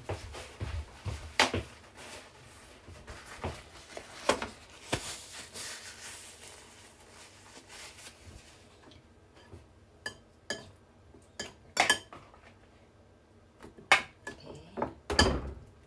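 Kitchen utensils knocking and clinking against dishes, with a few seconds of soft hiss-like noise in the middle and several sharp, ringing clinks in the second half.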